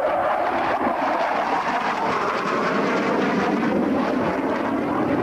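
Panavia Tornado jet in a display flypast: loud, continuous jet noise whose tone slowly falls in pitch.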